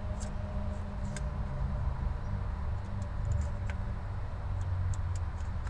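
A few faint, sharp clicks and light taps of the transmission fill cap and dipstick being handled in the engine bay, over a steady low rumble.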